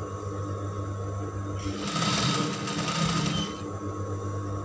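Industrial sewing machine stitching a seam in one run of about two seconds near the middle, over a steady low hum.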